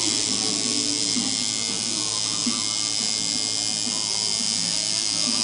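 Electric tattoo machine buzzing steadily as the needle lines skin, over faint background music.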